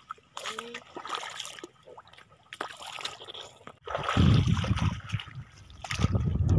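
Shallow seawater splashing and trickling underfoot as someone wades across a reef flat, with scattered small clicks, then a louder low rumble from about four seconds in.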